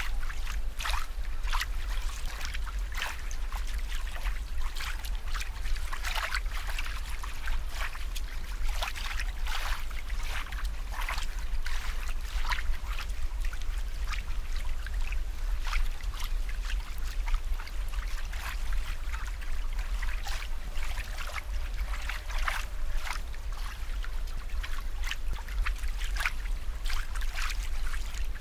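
Aquarium water trickling and bubbling in many small, irregular splashes, over a steady low hum.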